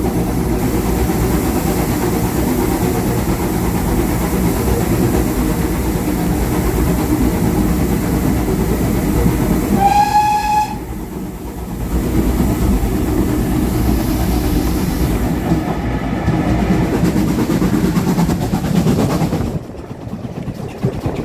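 A heritage railway train running with a steady low rumble, and about halfway through one short, high-pitched toot. The rumble drops away suddenly near the end.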